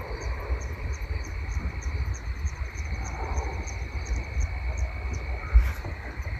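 Crickets chirping in a steady rhythm of about three chirps a second, over a low, uneven rumble on the microphone. A single louder thump comes about five and a half seconds in.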